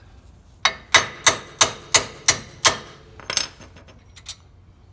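Seven quick hammer blows, about three a second, striking a wheel stud in a Nissan Frontier's front wheel hub to drive it out, followed by a softer knock and a few light clicks.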